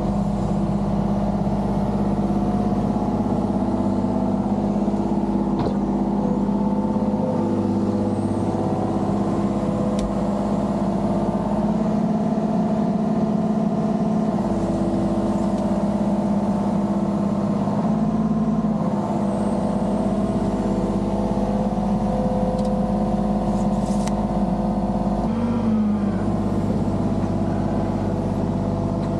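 Compact excavator's diesel engine running steadily under working load, its pitch shifting a few times as the hydraulics take load, with a few faint clicks.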